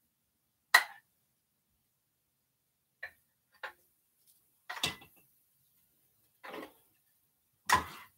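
A utensil knocking and clinking against a small saucepan as sauce is poured and scraped out of it: about seven short knocks, irregularly spaced a second or so apart, some with a brief metallic ring.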